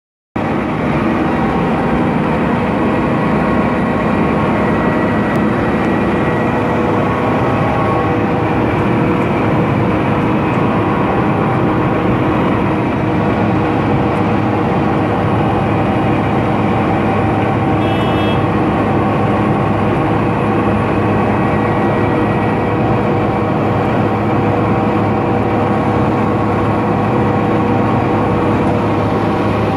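Milling machine running steadily, a continuous loud mechanical hum with several steady tones, with a brief sharper metallic sound about 18 seconds in.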